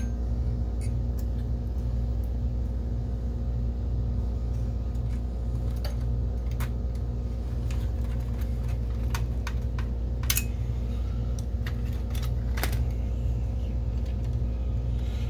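Small clicks and taps of a screwdriver and cable connectors against a projector's metal chassis and plastic parts, a few sharp ones scattered about two seconds apart, over a steady low background hum.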